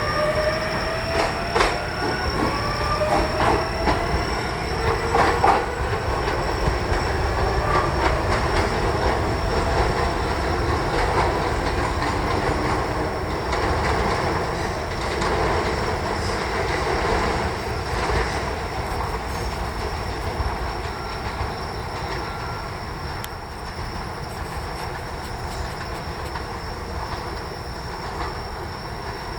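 Electric commuter train pulling out of a station: a rising motor whine in the first few seconds, with wheels clicking over rail joints. The rumble then slowly fades as the train draws away.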